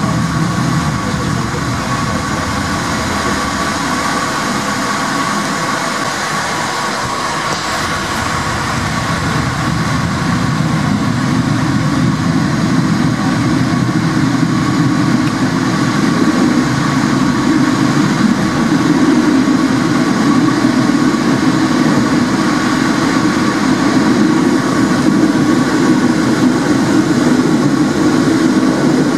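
Porto Metro light-rail tram running along its track, heard from inside the front of the car: a continuous rumble of wheels on rails with a steady thin tone running through it, growing a little louder in the second half.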